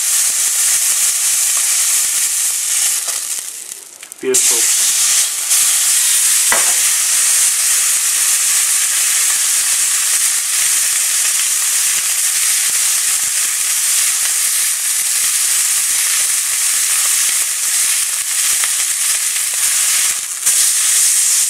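Beef joint searing in very hot oil in a frying pan, a steady loud sizzle as the outside browns. The sizzle fades briefly about three seconds in, then comes back abruptly about a second later.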